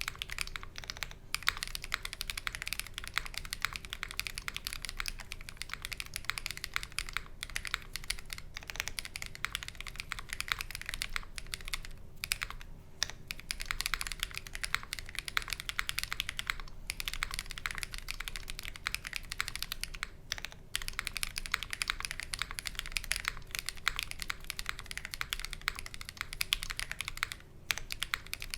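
OwlLabs Mr. Suit custom mechanical keyboard with lubed Quartz switches and GMK Kaiju keycaps, typed on quickly and continuously, with a few short pauses between bursts.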